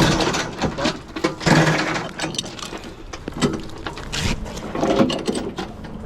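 Irregular clattering and knocking, with a few short squeaks, as cases of a food-service delivery are handled and moved.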